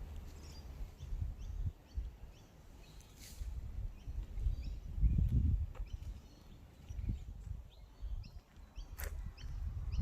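Small birds chirping in short repeated calls, over low rumbling thuds. There are a few sharp clicks, the sharpest about nine seconds in.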